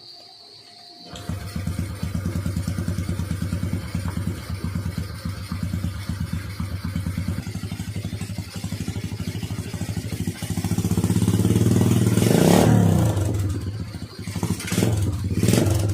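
Honda XRM 125's single-cylinder four-stroke engine starting about a second in and idling with a steady, rapid putter, then revved up and let back down near the end.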